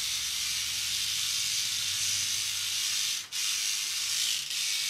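Electric toothbrush scrubbing glazed ceramic wall tiles: a steady hissing rub of bristles over a faint low motor hum, breaking off briefly about three seconds in.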